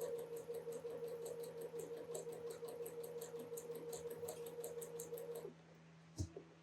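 Sewing machine stitching a seam at steady speed: a motor whine with a quick regular ticking of the needle, stopping about five and a half seconds in, then a single sharp click.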